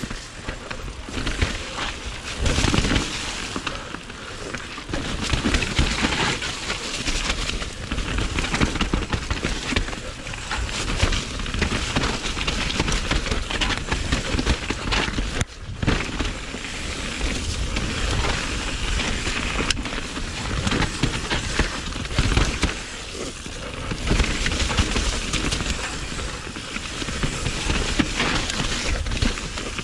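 Downhill mountain bike descending a rough dirt singletrack at speed: wind rushing over the microphone in gusty surges, mixed with tyres and bike rattling and crackling over the trail. The sound drops out for a moment about halfway through.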